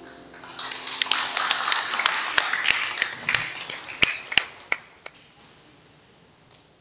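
Audience applauding: clapping swells up about half a second in, with a few sharp single claps standing out, and dies away after about five seconds.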